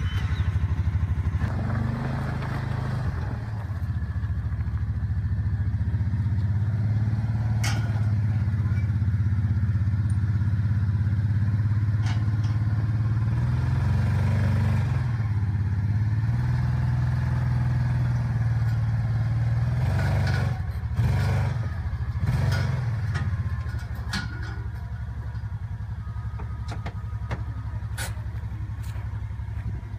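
Side-by-side UTV engine running under load as it climbs steel ramps into a pickup bed, its pitch rising and falling with the throttle. Metal knocks and clanks sound now and then, loudest about two-thirds of the way in, as the tyres cross the ramps and settle in the bed.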